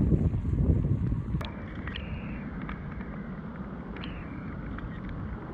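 Wind buffeting the microphone during a road bike ride in the rain, with gusty low rumbling; about a second and a half in the sound changes abruptly to a steadier hiss of riding on a wet road, with a few light clicks.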